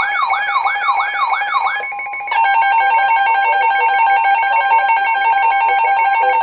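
Electronic emergency alert tones: a rapid rising siren sweep, about four a second, that stops about two seconds in. A harsh, steady pulsing alarm tone follows and runs on.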